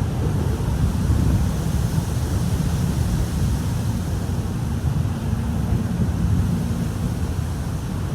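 Wind buffeting the microphone: a gusting low rumble, with a faint steady hum through the middle.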